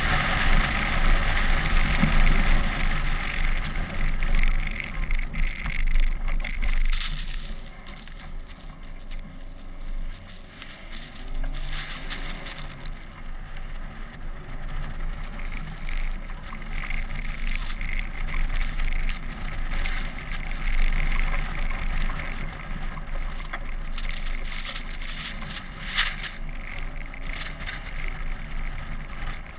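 Wind rush and driving noise of an SUV ploughing through deep snow, heard on a camera mounted outside the body, with snow swishing along the side. Louder for the first several seconds, then steadier, with a couple of sharp ticks.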